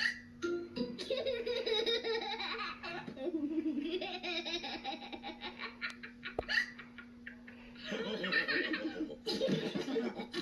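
Several cartoon characters' voices laughing together, in two spells with a short lull between them.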